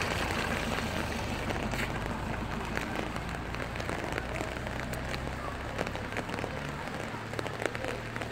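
Rain falling, with many drops tapping sharply on a nearby surface over a low steady hum.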